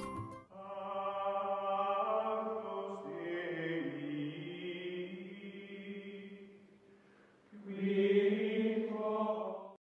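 Choir-like chanting voices as outro music: long held notes that shift pitch slowly in two phrases, with a brief lull before the second, cutting off suddenly near the end.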